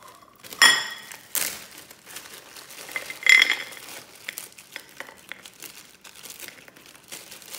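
A ceramic plate set down on a countertop with a ringing clink about half a second in, and another ringing clink about three seconds in, amid the crinkling of plastic zip-top bags as dates are handled.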